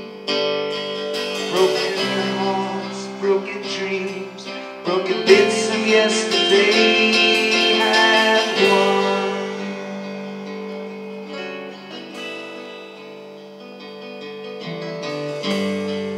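Live folk-rock band with banjo, acoustic guitars, bass and drums playing an instrumental passage. It eases off about two thirds of the way through and builds again near the end.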